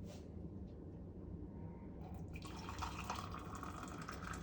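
Freshly boiled water pouring from a KitchenAid electric kettle, starting a little over halfway through and running steadily to the end.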